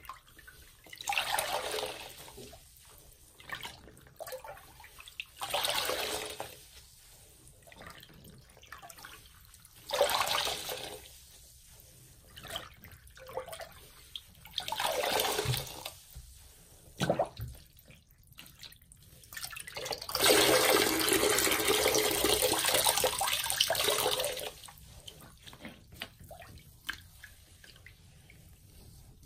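A soaked sponge squeezed and wrung by hand in a sink of soapy water, water squishing and gushing out of it in about five bursts. The longest burst comes about two-thirds of the way in and lasts some four seconds. Quieter drips and splashes fill the gaps between.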